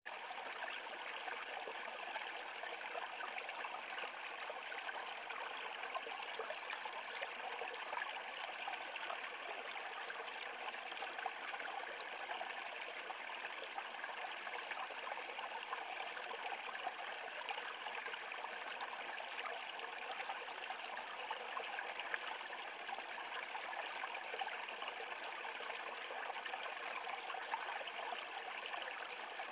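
Small brook trickling and splashing over a low rocky step into a shallow pool, a steady babble of running water.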